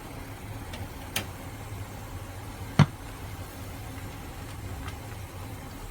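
A steady low hum with two sharp knocks, a small one about a second in and a louder one near the middle.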